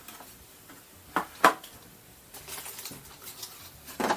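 Small hard plastic parts of a toy transformation belt set being handled and swapped, with two sharp clicks a little over a second in, light rustling, and another click near the end.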